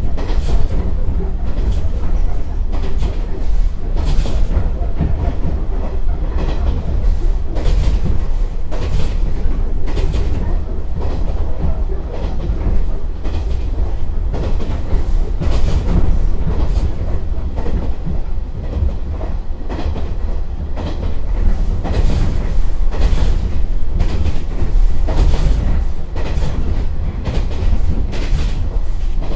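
JR 115-series KuHa 115-552 running at speed, heard from inside the car: a steady low rumble with the rattling 'gasha-gasha' of its bogies and the clack of the wheels over 25 m rail joints, the clacks coming every few seconds, often in close pairs.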